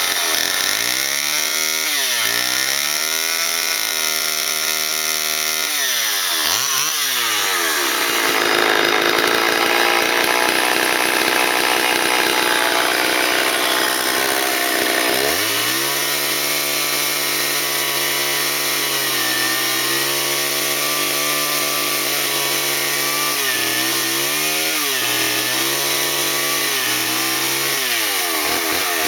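Vintage Homelite two-stroke chainsaw carving arbutus wood. It revs up and down several times, then is held at full throttle for about seven seconds in the cut. After that it runs steadier at lower speed, with a few quick blips of the throttle near the end.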